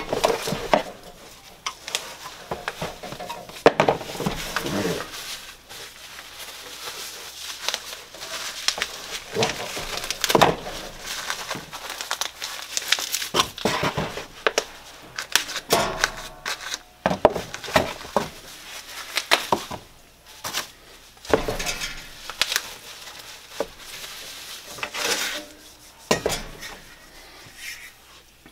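Irregular clinks and knocks of sheet-metal grill parts being handled, with crinkling of plastic packaging.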